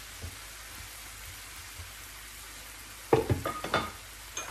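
Brussels sprouts and tomatoes sizzling steadily in an oiled frying pan. About three seconds in comes a quick run of loud clatters as a glass pan lid is set down on a pan.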